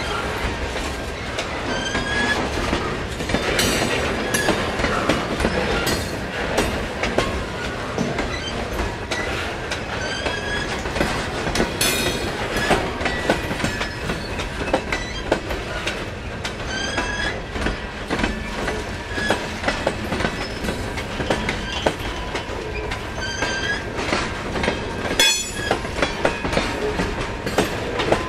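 Freight train cars rolling past, wheels clicking steadily over the rail joints, with short high wheel squeals every second or two.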